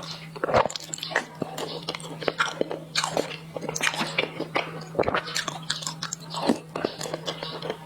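Close-miked chewing and biting of soft bread dipped in black sesame paste, with many irregular wet mouth clicks and smacks. A steady low hum lies underneath.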